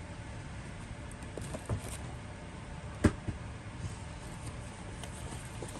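Small plastic clicks and taps from an action figure's parts being handled and fitted, with one sharp click about three seconds in, over a steady low room hum.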